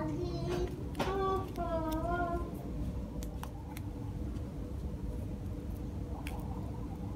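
A child's voice singing in the background for about the first two seconds. After it come faint crinkles and ticks of a thin plastic grafting strip being stretched and wound around a grape vine stem, over a steady low background rumble.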